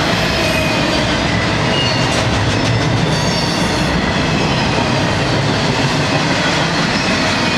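Double-stack intermodal freight train's well cars rolling past at speed: a loud, steady rumble of steel wheels on rail, with faint high squealing tones from the wheels. A run of wheel clicks sounds a couple of seconds in.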